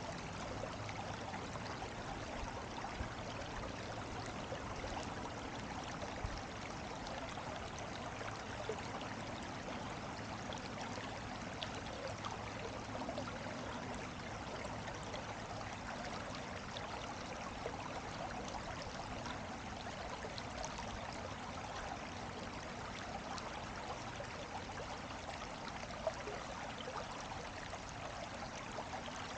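Steady rush of running water, like a small stream flowing, with a few faint ticks.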